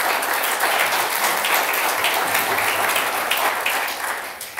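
Audience applauding a speaker's introduction, a steady patter of many hands clapping that dies away near the end.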